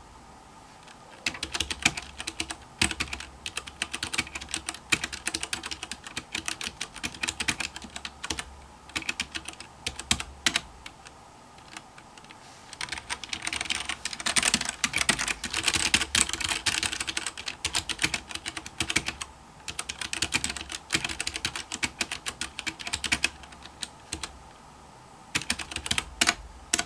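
Typing on a mechanical keyboard fitted with custom-printed keycaps: runs of rapid key clicks broken by a few short pauses.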